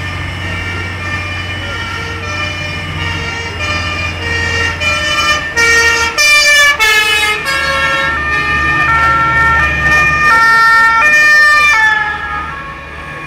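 Two-tone emergency-vehicle siren alternating between a high and a low note, growing louder as it comes closer. Its pitch drops and it fades as it passes, about twelve seconds in, over a steady low engine rumble.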